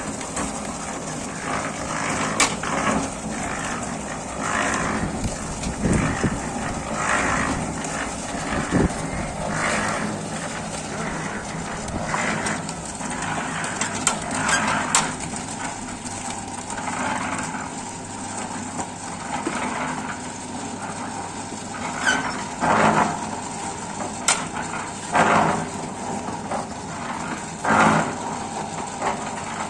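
A 350-litre concrete mixer running steadily, with loud bursts of noise every two to three seconds over its hum.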